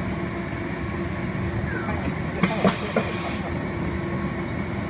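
CNC router machinery running with a steady hum. About halfway through comes a hiss lasting about a second, with three sharp clicks in it.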